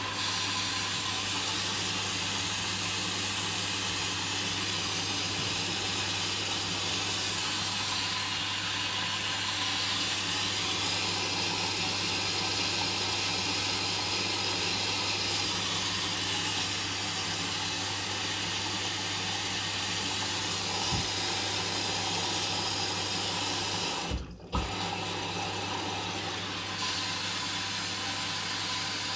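Hoover Dynamic washing machine drawing in water through its inlet valve for the first rinse: a steady rush of water with a low hum. The flow cuts off briefly about three-quarters of the way through, then starts again.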